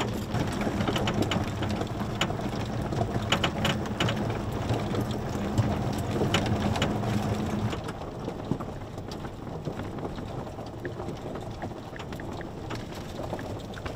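Golf cart driving over a gravel path: tyres crunching and the cart rattling over a steady low hum. About eight seconds in the hum stops and the crunching and rattling go on, a little quieter.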